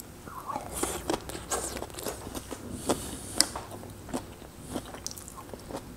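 Close-miked eating of gnocchi in tomato sauce: wet chewing with many short mouth clicks and smacks.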